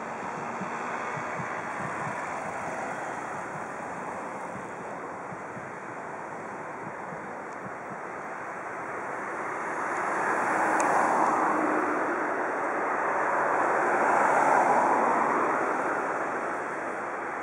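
Bombardier Flexity Classic low-floor tram passing: a steady rushing rolling noise that swells twice, about ten and fourteen seconds in.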